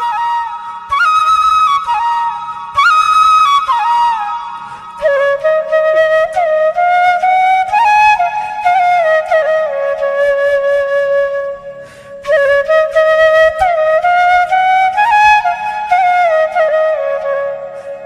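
Background music: a solo flute playing a slow, ornamented melody with sliding notes. It drops to a lower register about five seconds in and breaks off briefly about twelve seconds in.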